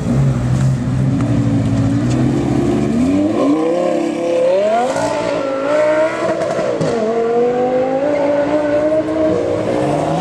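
A sports car engine running low, then accelerating hard from about three seconds in, its pitch climbing in steps with short drops between, as in upshifts, then holding at a high steady note.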